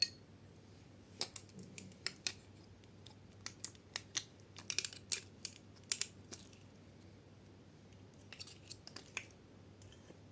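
Slime being handled and pressed, giving sharp sticky clicks and pops in irregular clusters, with short pauses between.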